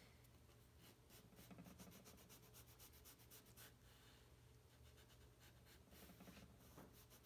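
Faint scratching of sandpaper rubbed back and forth in a partial saw cut in a thin balsa tail piece, opening up the gap, over a low steady hum.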